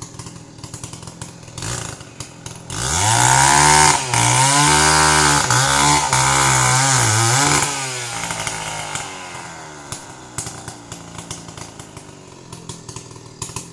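Two-stroke chainsaw idling, then throttled up about three seconds in and running hard for about five seconds as it cuts into a felled tree trunk, its pitch sagging and recovering under the load, before dropping back to idle.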